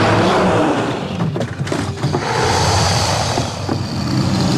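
Gorgonopsid creature sound effect: a deep, rumbling growl that starts abruptly and runs on with brief dips.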